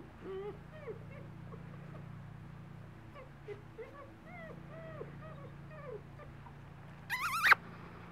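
Basset hound puppy whimpering in short, repeated squeaks, then a loud wavering yelp about seven seconds in.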